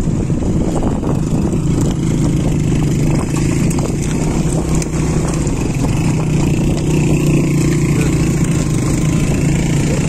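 Car engine running steadily with road noise as it drives along a rough dirt track.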